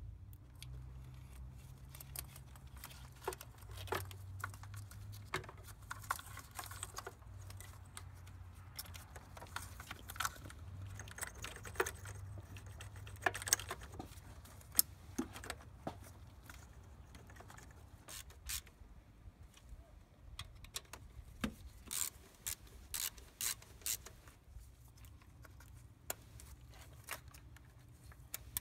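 Hand work on an engine's fuel rail and plugging the plastic injector wiring connectors onto the new injectors: scattered small clicks and knocks, coming more often near the end, over a faint low hum.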